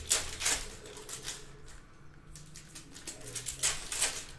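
Glossy Panini Mosaic basketball cards being flicked through and laid onto a stack by hand: a series of short card slaps and rustles, loudest just after the start and again near the end.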